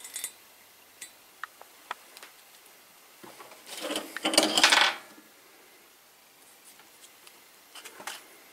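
Metal objects clattering and clinking. A few small clicks come first, then a dense jangling burst, the loudest part, from about three and a half to five seconds in, and a shorter rattle near the end.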